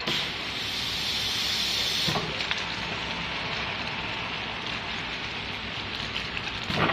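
Bag-in-box filling machine filling a 5-litre foil bag: a steady rushing hiss of liquid flowing through the filling head into the bag. The hiss starts suddenly, is higher and louder for the first two seconds, and ends with a sharp click near the end as the fill stops.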